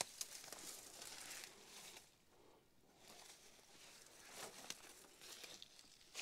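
Faint rustling and soft crunching of dry grass underfoot, in a few short patches with a quieter lull in the middle.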